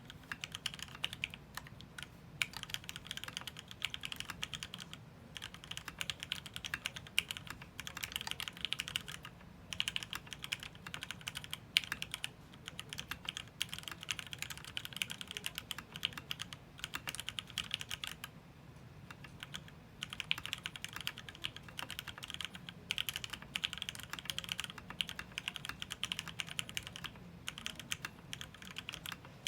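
Continuous fast typing on a Matrix 8X v2.0 mechanical keyboard with lubed Gateron Ink Black linear switches, an aluminium plate and PBT keycaps, and no sound dampening inside. The keystrokes run quickly with a brief pause about 18 seconds in.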